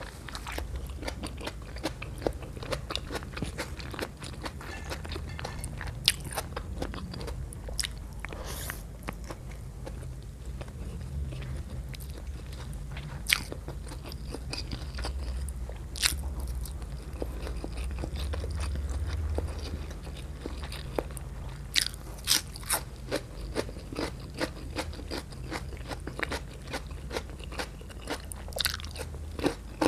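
Close-miked eating sounds: a person chewing and biting food, with scattered sharp crunches that come in quicker runs near the end.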